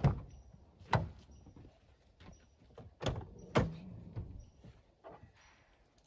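Toyota FJ Cruiser's doors being opened: the front door is unlatched and pulled open, then the rear-hinged half door behind it is unlatched and swung open. There are four sharp clacks of latch and door, two about a second apart at the start and two half a second apart about three seconds in.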